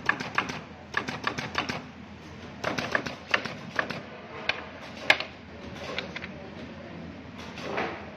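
Gantry battery spot welding machine welding 18650 cells, sharp snaps coming in quick runs of five to seven, then a few single snaps, one louder than the rest.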